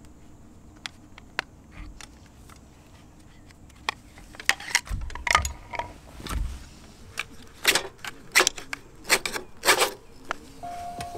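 A series of sharp clinks and knocks from objects being handled: a few single clicks at first, then busier clusters from about four seconds in, with some low thumps among them.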